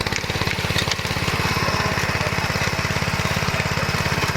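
Flail mower's 15 hp Hyundai engine running steadily, with a fast, even beat.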